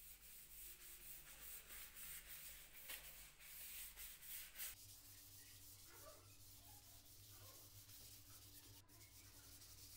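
Cloth rag rubbing oil into a stained walnut tabletop: faint, noisy back-and-forth wiping strokes, clearest in the first half, then much fainter after about five seconds.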